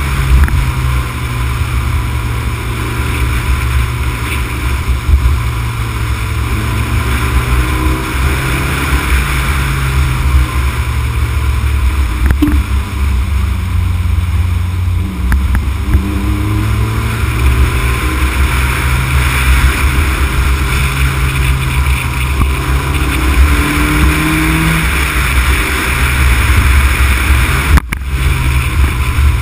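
Honda Civic Type R EK9 driving a winding downhill road, heard through heavy low wind and road rumble on a car-mounted camera's microphone. The B16B four-cylinder engine sits faintly underneath, its pitch rising and falling through the bends. The sound cuts out for a moment near the end.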